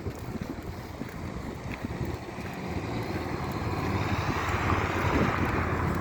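Wind buffeting the microphone with a low rumble, joined by a rushing hiss that swells over the second half.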